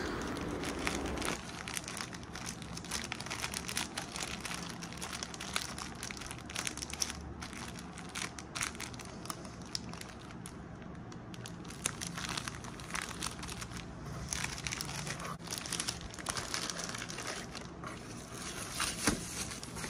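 Clear plastic sleeve crinkling and rustling as hands slide small paintings and cards into it and fold it over, with many small irregular crackles.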